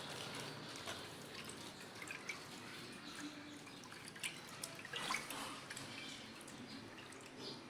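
Water sloshing and dripping in a bowl as the tomato rasam mixture of water, salt and spice powders is mixed, with small splashes and a louder splash about five seconds in.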